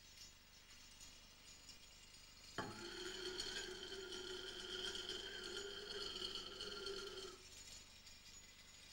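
A long metal threaded rod standing in a box, struck once about two and a half seconds in and ringing on with several clear tones at once, one low and two high, until it is damped suddenly about seven seconds in.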